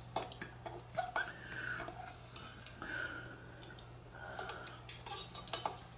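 Faint, scattered clicks and light scrapes of a utensil against a cup of instant ramen noodles being stirred and eaten.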